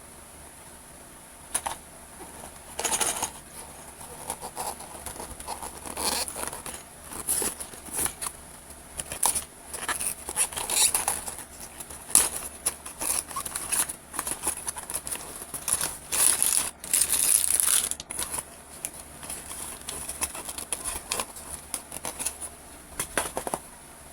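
Toy box and plastic packaging being opened and handled: irregular crinkling, tearing and rustling with small clicks, busiest in the middle, over a faint steady high whine.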